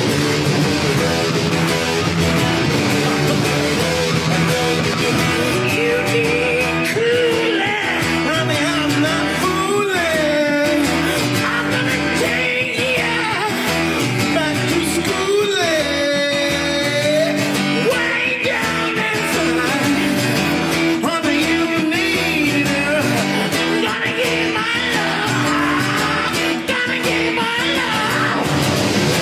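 Rock-style guitar music with a voice sliding up and down in pitch over it: a vocal mimic imitating electric guitar with his voice.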